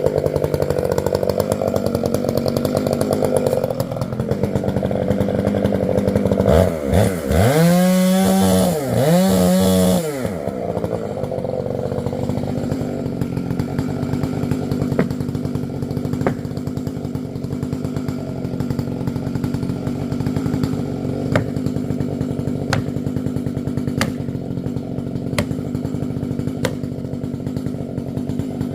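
Stihl two-stroke chainsaw running, revved up and back down twice about seven and nine seconds in, then settling to a steady lower-pitched run.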